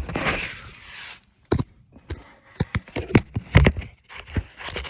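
A short rustling hiss, then a string of sharp clicks and knocks, about a dozen over three seconds: small parts and tools being handled.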